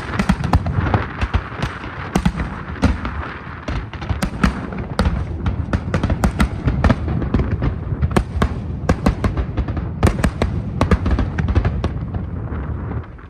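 Aerial fireworks going off in quick succession: a dense barrage of sharp cracks and booms over a continuous low rumble, easing off near the end.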